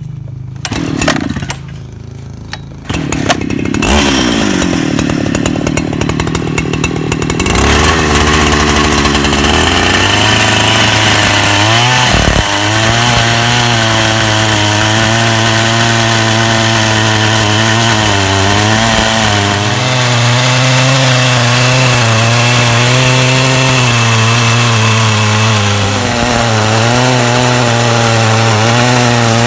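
Chainsaw in a portable chainsaw mill, fitted with a new, freshly filed chain. It runs low for a few seconds, revs up with a rising whine about three seconds in, then from about eight seconds runs steadily under load, its pitch wavering as it rips a plank lengthwise along the log.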